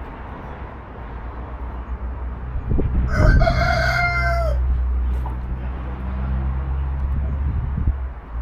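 Rooster crowing once, about three seconds in: a single call of about a second and a half that drops in pitch at the end, over a low steady hum.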